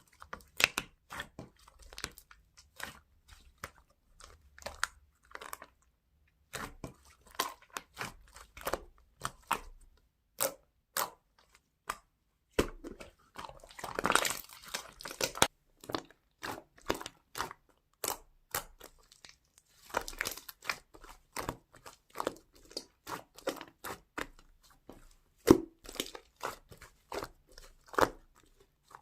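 Slime being squeezed, poked and pressed by hand, giving many sharp, irregular popping clicks. There are longer bursts of crackling about halfway through and again about two-thirds of the way in.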